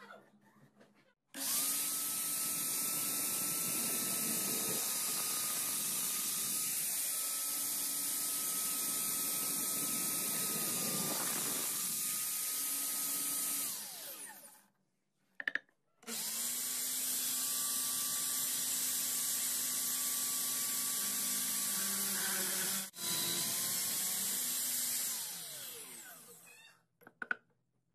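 Electric drill boring holes into wood. The motor whines up to speed and runs steadily for about twelve seconds, then winds down. After a short pause a second run of about ten seconds follows, with a brief dip about two-thirds of the way through, before it too winds down.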